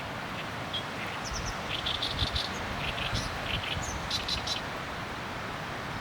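Small birds chirping: a quick run of short, high chirps for a few seconds over a steady outdoor hiss of wind and ambient noise.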